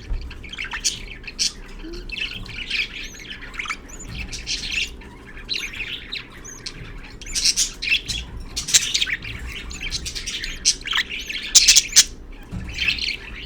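Budgerigars chirping and chattering in a rapid run of short, high-pitched calls that come thickest a little past the middle and again near the end.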